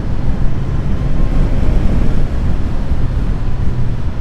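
Wind rushing over the microphone of a motorcycle in motion, with the Suzuki GSX-S1000GT's inline-four engine running steadily underneath as a low drone.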